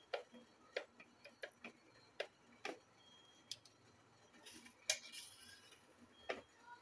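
Knife cutting through a spongy steamed dhokla, its blade clicking on the plate beneath at each cut: about a dozen short, sharp ticks at an uneven pace, with a brief scraping rustle near the middle.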